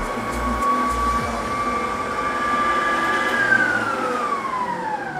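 Electric stand mixer beating cookie batter, its motor running with a steady whine, then switched off a little over three seconds in, the pitch falling as the motor spins down.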